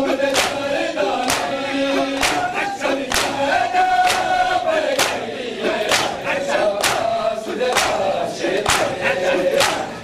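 Group of men chanting a nauha (Muharram lament) in unison while beating their chests in time (matam), the hand strikes landing evenly about once a second.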